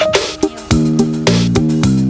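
Background music: plucked guitar chords over a steady beat.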